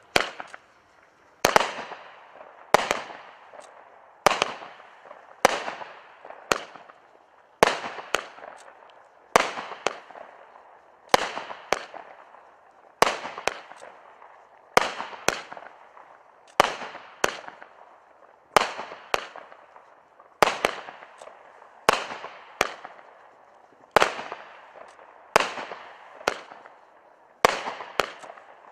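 Copperhead 25-shot firework cake firing shot after shot. Each shell goes off as a sharp bang with a fading tail, about one every one to two seconds, some coming in quick pairs.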